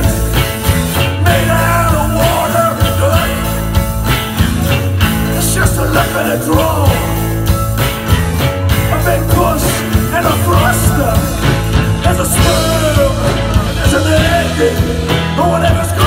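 A live rock band playing loud and steady: drum kit and electric guitar, with a singer's voice wavering over the top.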